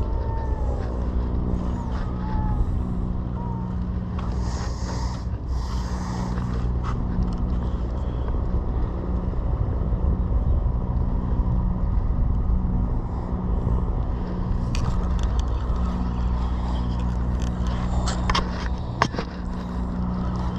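Steady low engine drone, with a few sharp clicks in the second half.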